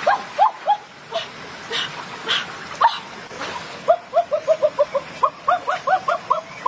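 An animal calling in short, high, upward-flicking notes: a few near the start, then a fast run of about six a second through the second half. A few brief water splashes come in between.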